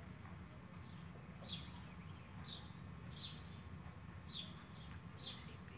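Small birds chirping repeatedly, short high chirps that fall in pitch, about one a second, over a low steady hum.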